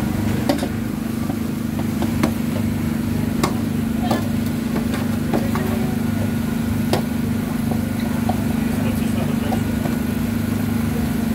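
A steady low engine hum runs throughout, with about six sharp, scattered clicks of metal utensils knocking against the steel trays in the first seven seconds.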